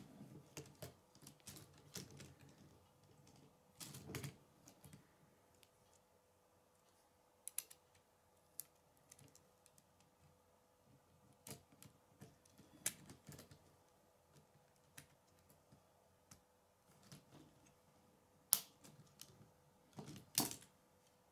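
Plastic K'nex rods and connectors clicking and snapping together as pieces are handled and fitted. The clicks are scattered and irregular, and the loudest come near the end.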